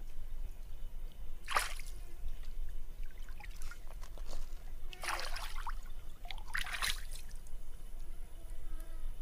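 Stream water splashing and trickling in three short bursts as a pig's head is washed by hand, over a steady low rumble.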